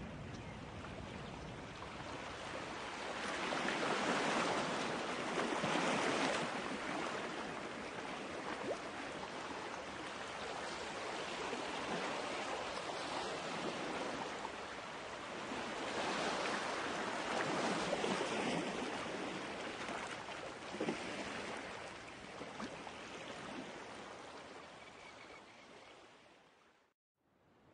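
Ocean waves washing, a steady rushing that swells louder twice and then fades, cutting out briefly near the end.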